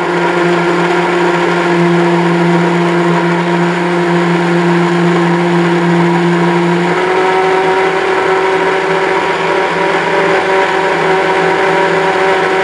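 Electric mixer grinder running steadily, its motor whining as it grinds banana and sugar in a steel jar with the lid held down. The pitch steps up slightly about seven seconds in.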